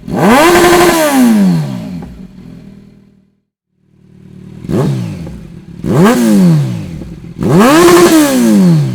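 Kawasaki Z900 inline-four motorcycle engine revved in sharp throttle blips, the pitch rising and falling with each. A long rev held at the top opens, the sound breaks off into a short silence about three seconds in, then three more revs follow, the last one also held at the top before dropping back.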